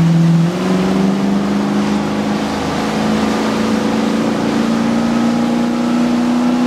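Motorboat's Volvo Penta inboard engine running at speed, its pitch stepping up about half a second in and then climbing slowly, over the rush of water in the wake.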